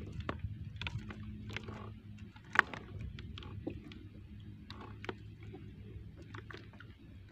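Scattered light taps and knocks in a small wooden outrigger canoe while a handline is worked in by hand, with one sharper knock about two and a half seconds in, over a steady low hum.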